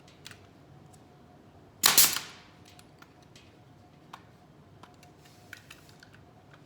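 A nail gun fires once about two seconds in, a sharp shot with a short fading tail, driving a nail into the glued wooden part. Light clicks of handling the small wood pieces come before and after it.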